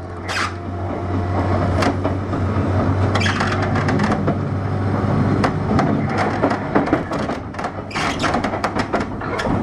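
Cabin sound inside a JR 201-series electric train's MoHa 200 motor car: a steady low hum with frequent clicks and knocks over a constant noise.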